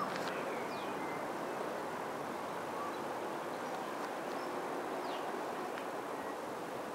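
Steady outdoor background noise of a city roadside, with a few short, falling bird chirps.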